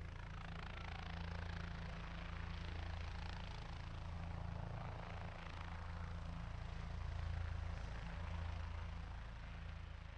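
Steady low mechanical drone, like a distant engine, with a rushing hiss above it, swelling and ebbing slightly.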